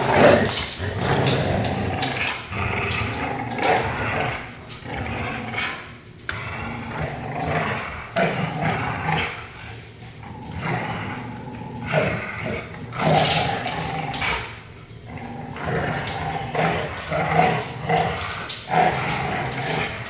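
Pit bull and Malinois dogs growling and snarling in rough play, tugging and wrestling over a toy. Loud, near-continuous bouts with short pauses.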